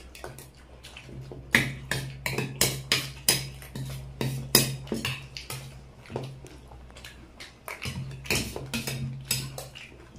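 Spoons clinking and scraping against plates while chaat is eaten: many quick, irregular sharp clicks, over a steady low hum.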